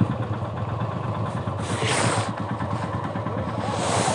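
Motorcycle engine idling with an even low pulse, with two brief rushes of noise, about two seconds in and near the end.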